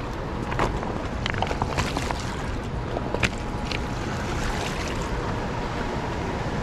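Shallow river running over a rocky bank, a steady rush of water with wind buffeting the microphone. A few short sharp clicks and ticks come between about half a second and three seconds in.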